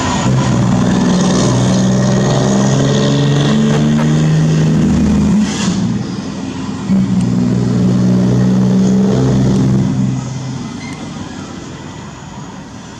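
Scania truck engine through a straight-piped exhaust, running loud and steady under throttle. It drops off briefly about halfway, comes back on, then fades away over the last few seconds.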